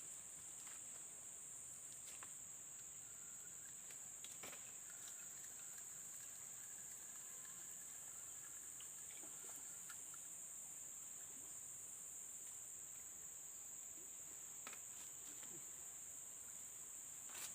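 Steady high-pitched insect chorus, with a few faint clicks.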